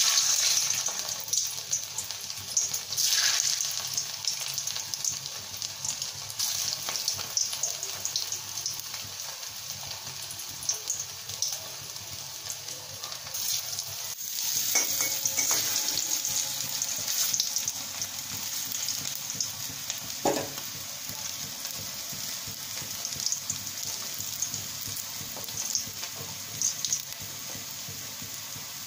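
Beetroot and chicken balls deep-frying in hot oil: a steady sizzle and crackle, swelling louder about halfway through as more balls go into the oil.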